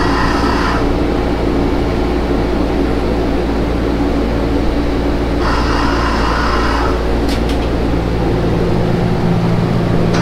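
Steady hum of a Ferris wheel gondola's air-conditioning fan heard inside the closed cabin, with several held low tones and a louder hiss that comes in briefly twice.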